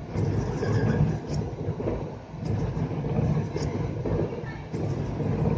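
Steady rumble inside the cab of a Mumbai suburban electric local train moving slowly along flooded track, with a few faint high clicks.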